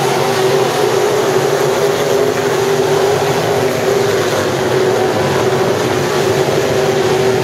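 A field of dirt-track sport modified race cars running at speed around the oval, their engines together making a loud, steady sound with a held tone.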